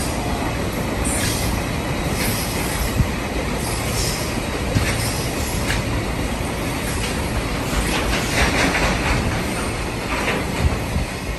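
Freight train running past: a steady rolling rumble with irregular clicks of wheels over rail joints and occasional brief wheel squeal.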